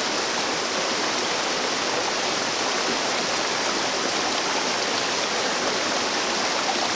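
Small mountain brook running steadily over a rocky cascade: an even, unbroken rush of water.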